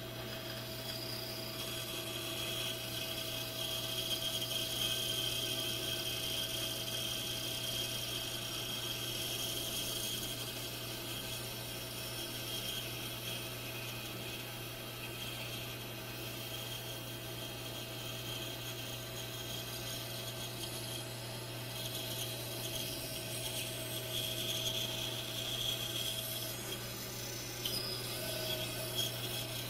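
Bandsaw running steadily, its blade cutting a curve through a glued-up wood block: a constant motor hum with a thin whine over the rasp of the cut.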